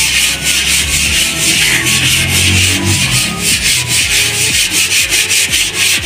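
Abrasive scouring of rust from the steel panels of a combine harvester's cutter header: quick, even scrubbing strokes, several a second, with a harsh scratchy rasp. It is the rust-removal stage before repainting.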